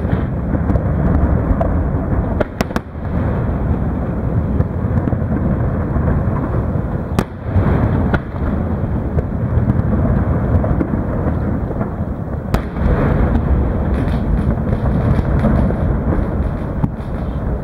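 Aerial fireworks display: a continuous rumble of many shells bursting overlapping one another, with several sharp bangs standing out from it.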